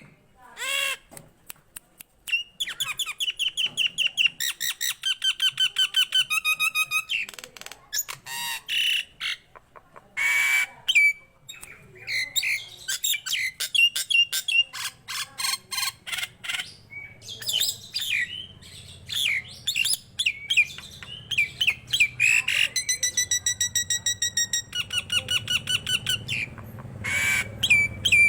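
Nias hill myna in full song: a varied, almost unbroken run of harsh squawks, rapid trains of clicking notes and clear whistled notes.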